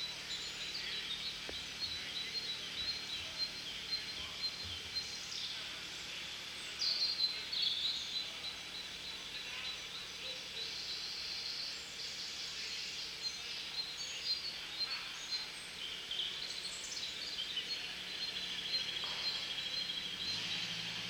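Several songbirds singing at once: a busy mix of short chirps, whistles and trills.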